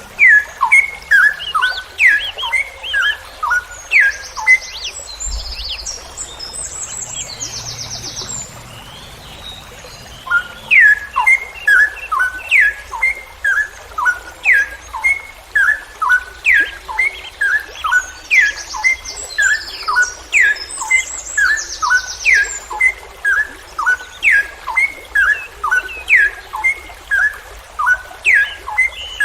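Straw-headed bulbul (cucak rowo) singing a long run of quick, loud, downward-sliding notes, with a lull of several seconds a couple of seconds in and then a dense, continuous stretch. A short high rattling trill sounds twice among the notes.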